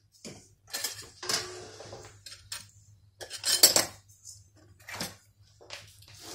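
Wooden spoon scraping and knocking against a stainless steel mixing bowl as crumbly cookie dough is stirred, in irregular strokes with the loudest a little past halfway.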